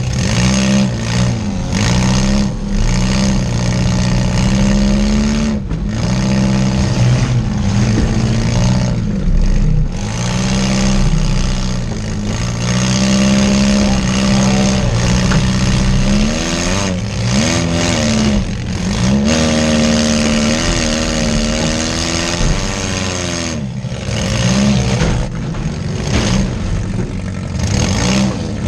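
Compact demolition derby car's engine, heard from inside its stripped cabin, revving up hard and dropping back again and again as the driver works the throttle and shifter during the derby.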